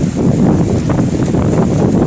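Strong snowstorm wind buffeting the microphone: a loud, steady, low rushing noise.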